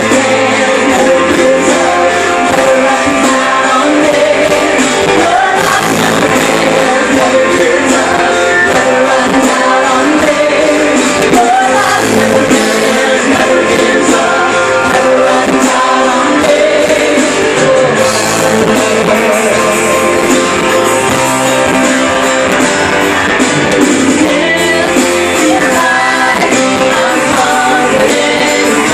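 A live worship band plays loudly and steadily, with a woman singing lead over keyboard and drums, picked up by a phone's microphone.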